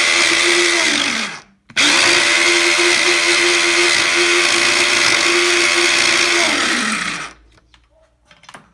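Electric mini food chopper, worked by pressing down on its lid, whirring as it grinds a mix of chopped olives, garlic, harissa, lemon juice and olive oil. It runs briefly, stops for a moment, then runs about five seconds more and winds down with a falling pitch when released. A few light clicks follow near the end as the chopper is opened.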